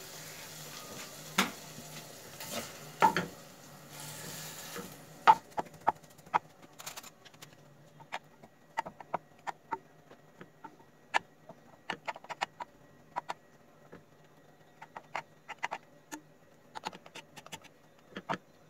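Wooden spatula knocking and scraping against a metal pot while cooked chicken pieces are pressed apart and shredded: many sharp, irregular taps. A faint sizzle from the drying pot stops about five seconds in.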